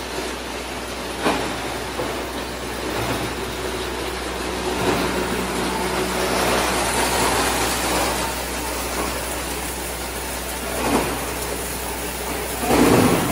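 Plastic crusher running and grinding up a PPR pipe fed into its chute: a steady mechanical din over a low motor hum, with several short sharp cracks as the pipe breaks up and the loudest burst near the end.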